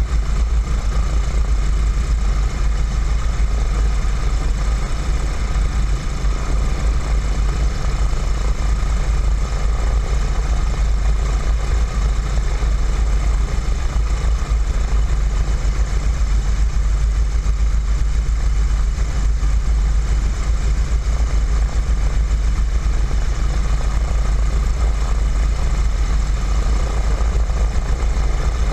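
Radial engine of a WACO YMF-5 biplane, a Jacobs R-755 seven-cylinder, running at low taxi power. It gives a steady deep rumble that does not rise or fall.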